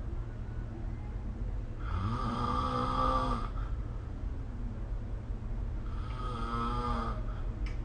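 A person snoring in their sleep: two long snores about four seconds apart, each a pitched tone, over a steady low hum.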